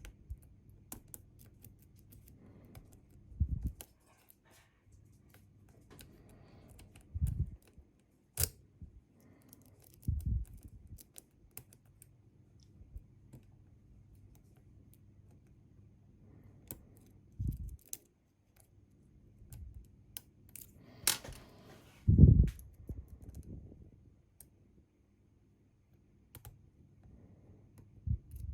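Small metallic clicks and scratches of lock-picking tools working in a Bi-Lock cam lock, with several dull thumps of handling, the loudest about three-quarters of the way through.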